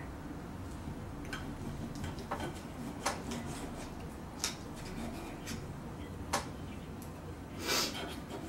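Knife and fork cutting steak on a plate: scattered light clicks of the cutlery against the plate, with a longer scrape near the end.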